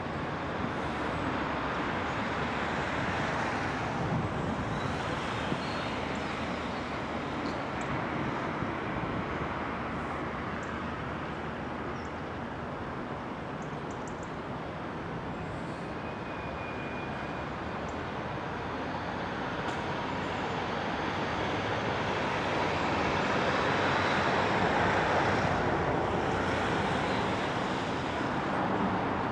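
Road traffic noise, a steady rush that swells and fades as vehicles pass, loudest a little before the end.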